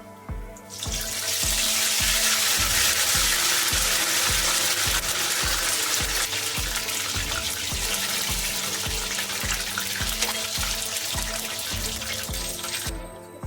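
Background music with a steady beat, with a loud, steady hiss over it that starts about a second in and cuts off abruptly near the end.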